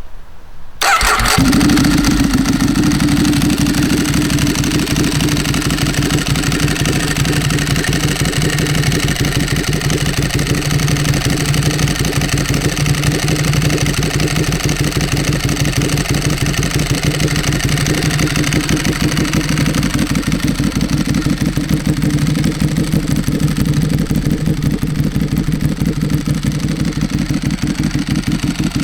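Ducati Streetfighter S L-twin engine with a full Termignoni racing exhaust starting about a second in, then idling steadily with a loud, fast, lumpy exhaust pulse.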